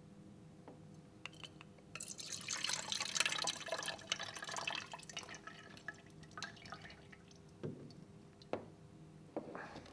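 Motor fluid draining from a Grundfos Unilift KP submersible pump and dripping and trickling into a plastic measuring jug. It is heaviest for about three seconds starting two seconds in, then thins to scattered drips. A few light knocks near the end.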